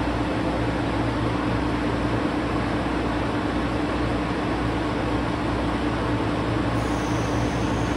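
KiHa 125 diesel railcar standing at the platform with its engine idling: a steady low hum with a constant drone.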